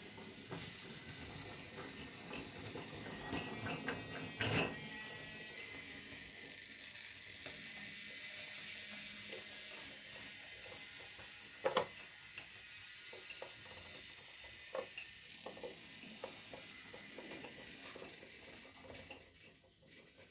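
Small geared motor of a toy train running with a steady whirr and fine ratcheting ticks, broken by a few sharp clicks and knocks, the loudest just under twelve seconds in.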